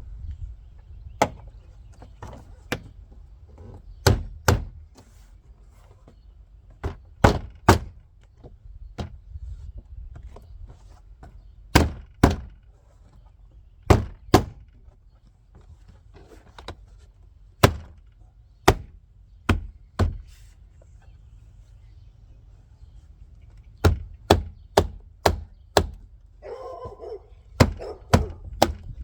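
Door panel of a car being fitted back on: about two dozen sharp, irregular knocks and clacks of plastic trim and clips, several in quick pairs or runs.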